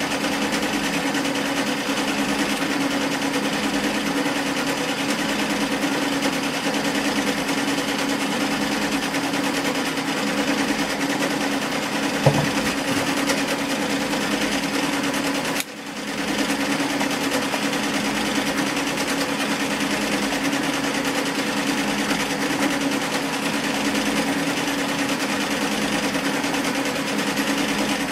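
Sewing machine running steadily with a fast, even stitching clatter. About two-thirds of the way through it cuts out for a moment and picks up again, and shortly before that there is one sharp click.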